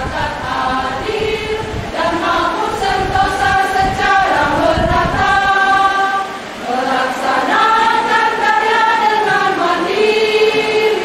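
Women's choir singing in long held chords, with a brief drop in level a little after halfway before the next phrase swells in.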